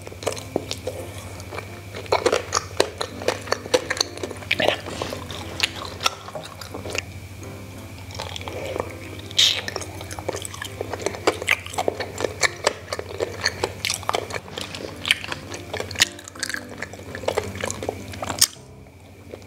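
Close-up chewing and wet mouth clicks of a person eating a soft, chewy glutinous rice dumpling (kicang) coated in granulated sugar, in irregular bites and chews that stop about a second before the end.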